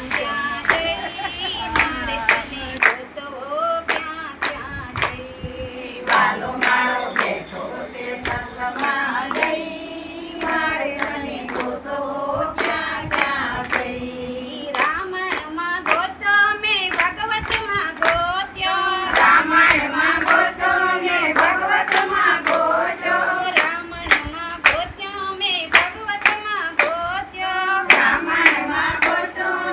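A group of women singing a Gujarati devotional bhajan in chorus, to a steady beat of hand claps.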